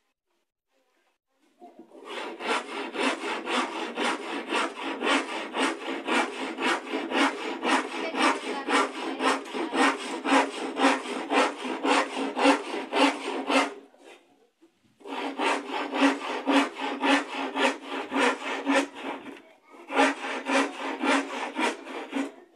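Hand saw cutting a wooden board in quick, even back-and-forth strokes, about three a second. The sawing stops twice for a moment and starts again.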